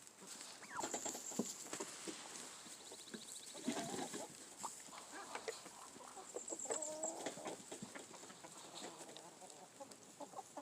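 Chickens clucking softly, with short calls about four and seven seconds in, among scattered small clicks and rustles.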